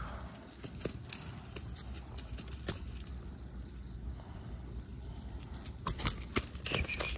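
Scattered metallic clicks and jingles of fishing pliers against the hooks of a topwater lure while a small bass is unhooked, with a denser run of clinks near the end.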